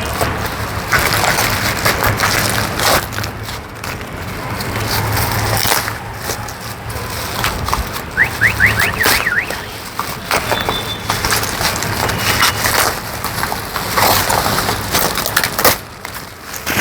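Hands unpacking a delivery parcel: irregular rustling and tearing of packaging with scattered clicks and scrapes, over a steady low hum.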